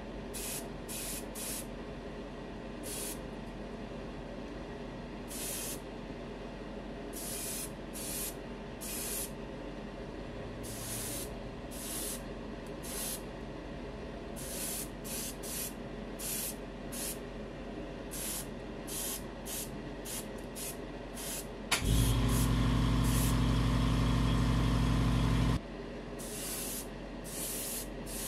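Airbrush spraying enamel paint in short, irregular bursts of hiss, roughly one a second, as the trigger is worked. About two-thirds of the way in, a loud, steady motor hum runs for nearly four seconds and stops suddenly: the airbrush compressor cycling on.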